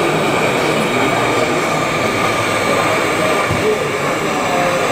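Model train running along a layout's track, with a steady rushing noise throughout.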